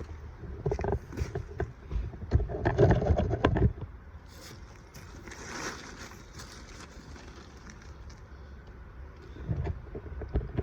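Irregular low thumps, knocks and rustling close to the microphone for the first few seconds, then quieter, with a short rustle in the middle and another brief bump near the end.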